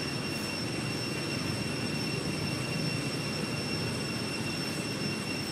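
A steady outdoor drone: low rumbling noise with a thin, unbroken high whine over it, unchanging throughout.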